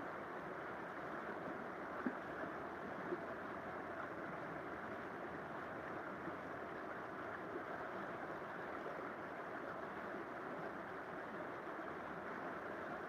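River water flowing with a steady rushing sound, broken by two brief clicks about two and three seconds in.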